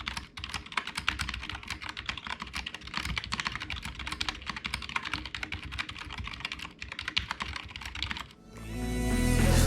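Fast, continuous typing on the optical key switches of a Cooler Master CK351 mechanical gaming keyboard, a dense run of key clicks. The typing stops near the end and music fades in.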